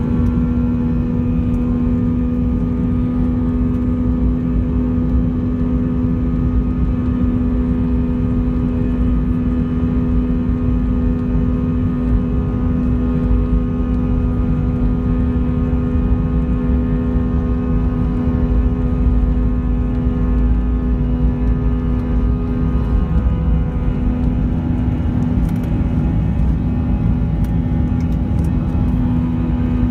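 Airbus A320's IAE V2500 turbofans at takeoff power, heard from inside the cabin during the takeoff roll: a steady engine drone with several held tones over a heavy low rumble. The rumble eases about 23 seconds in as the aircraft lifts off.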